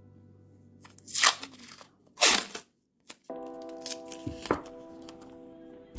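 Masking tape being pulled and torn, two tearing noises about a second apart, used to seal the bottom of a camera against metal shavings. Background music comes in about halfway through.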